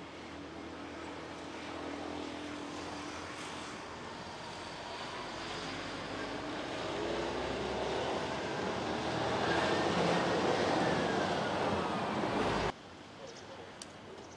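Engine noise of a passing vehicle or aircraft, growing steadily louder with a faint tone sliding down near its loudest, then cut off suddenly near the end.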